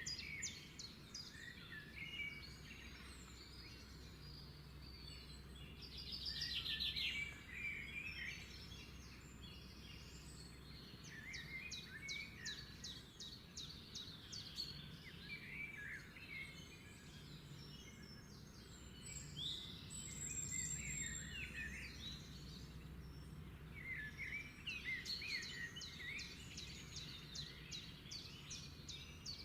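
Several birds chirping and singing, with bursts of fast trills recurring throughout, over a faint steady low hum.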